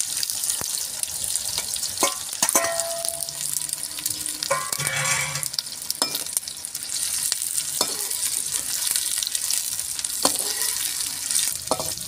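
Chopped onions sizzling steadily in hot oil as they fry, stirred with a spoon that knocks and clinks against the pot now and then.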